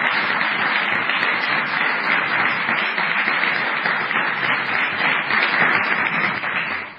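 Audience applause, a dense steady clapping that fades out near the end.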